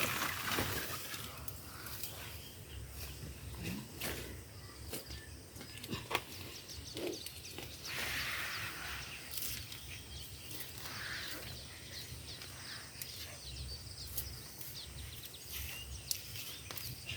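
Hand work among arrowroot plants: leaves and stems rustling, with scattered soft knocks and clicks and a louder swell of rustling about eight seconds in.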